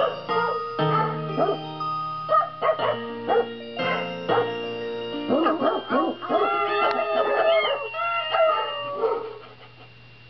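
A novelty song of dogs barking in time over backing music, short pitched barks following the tune. Near the end come wavering drawn-out notes, and the music fades out.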